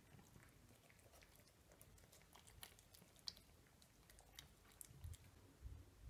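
Two cats chewing dry kibble: faint, irregular crunches and clicks.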